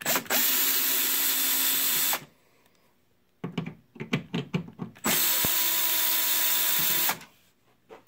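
Cordless 12-volt drill/driver backing out case screws, running twice for about two seconds each time with a steady motor whine, with a cluster of short clicks and taps between the two runs.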